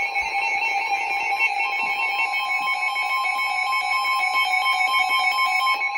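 Music with a plucked, guitar-like repeating melody; about a second and a half in, a steady single-pitch alert tone near 1 kHz joins and holds over it: the Weather Radio warning alarm tone that comes before a new warning is read.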